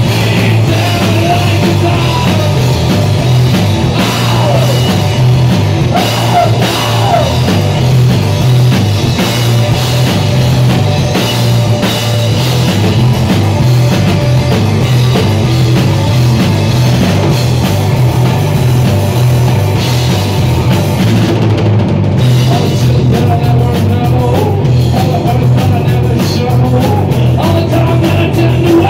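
Rock band playing live and loud: electric guitar, electric bass and drum kit, with the guitarist singing into the microphone.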